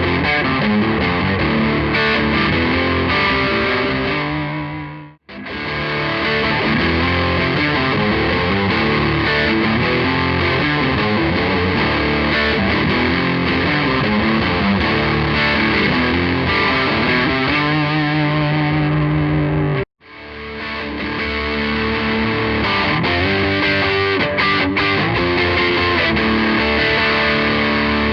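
Electric guitar played through the overdrive channel of a Blackstar HT20R MKII valve amp: distorted riffs and chords. The playing breaks off twice, fading out about five seconds in and cutting off near twenty seconds, and starts again each time.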